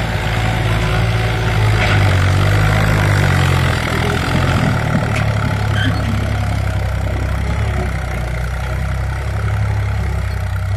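Preet 955 tractor's diesel engine working under load as it tows a trailer over mounds of loose earth: a steady low engine note that eases off slightly about four seconds in.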